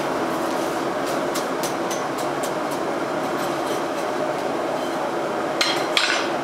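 Steady rushing hum of a coke forge fire with air blown through it by the forge blower, with light clicks of a rake working the coke and two sharper metal clanks near the end.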